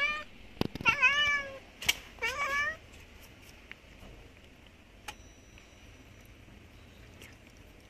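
Domestic cat meowing: the end of one meow, then two more short meows within the first three seconds, each bending in pitch. After that, only a few faint clicks.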